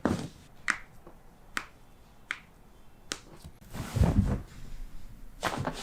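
A string of sharp pops and cracks from a patient's joints being adjusted by a chiropractor, about five, each under a second apart. About four seconds in comes a louder heavy thump, followed by a few more cracks near the end.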